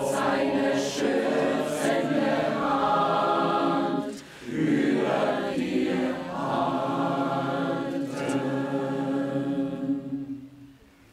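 Large mixed choir of men's and women's voices singing together, with a brief break between phrases about four seconds in. The singing dies away near the end as the piece finishes.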